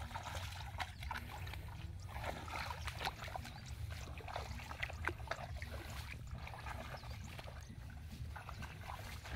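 Bare feet squelching and splashing through shallow water and mud in a flooded rice paddy, in irregular wet steps, over a steady low rumble.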